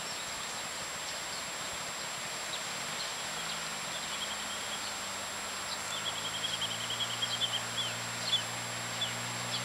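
A distant motorbike engine running steadily, coming in about three seconds in and slowly growing louder as it approaches. Birds chirp over it, with a quick run of chirps near the middle.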